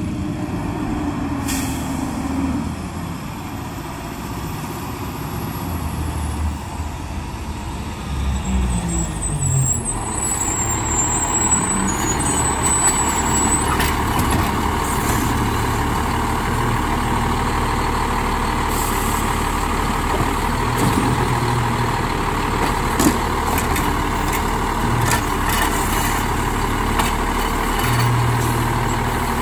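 Autocar Autoreach side-loading garbage truck approaching with its engine note rising and falling, then stopping with an air-brake hiss about ten seconds in. It then idles with a steady whine over the engine.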